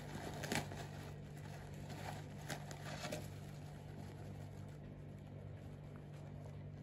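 Faint rustling of paper towel being pulled apart and unfolded by hand, with a few brief, slightly louder crinkles.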